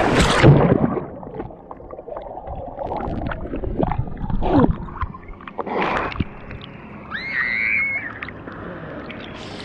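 A big water splash as a person plunges into a river pool, then muffled sloshing and gurgling of water around a camera held at the surface and dipping in and out of the water.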